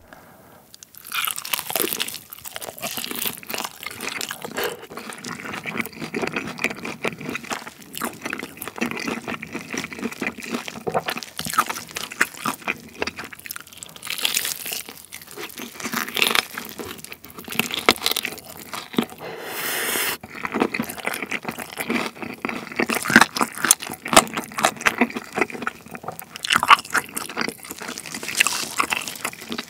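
Close-miked biting into a balsamic-glazed fried chicken drumstick and chewing it: crunching of the fried coating with many small crackles and clicks. The sound begins about a second in.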